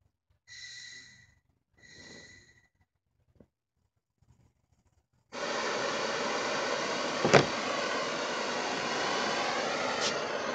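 Handheld butane torch being lit: two brief whistling hisses of gas, then about five seconds in the flame catches and burns with a loud steady hiss. A sharp knock about seven seconds in is the loudest sound, with a smaller one near the end.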